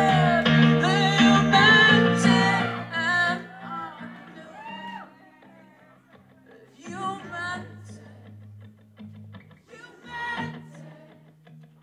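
Live solo performance: a man singing to his own acoustic guitar. Loud for the first three seconds, then much softer, with short sung lines spaced a few seconds apart over sustained guitar notes.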